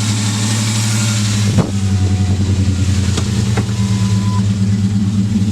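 1999 Ford Ranger engine idling roughly, with a steady air hiss from a cracked intake hose under the throttle body: an air leak that makes the idle uneven. A few light clicks come about a second and a half in and around three seconds in.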